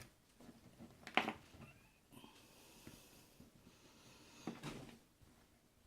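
Quiet room with a person's breathing: a short, sharp sniff about a second in, a faint steady breath hiss through the middle, and another brief breath near the end.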